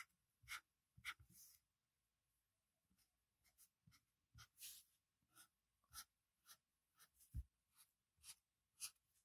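A black felt-tip marker drawing short strokes across paper, a faint scratch with each stroke, about two a second, with a pause of over a second near the start. A soft low knock comes about seven seconds in.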